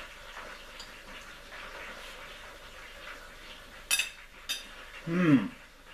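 Knife and fork scraping and clinking on a ceramic plate while eating, with two sharp clinks about four seconds in. Near the end a short hummed 'mm', falling in pitch, from the eater as he chews.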